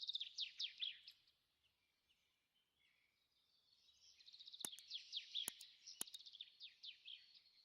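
Small bird singing, faint: two runs of quick, falling chirps, a short one at the start and a longer one from about halfway on, with three sharp clicks during the second run.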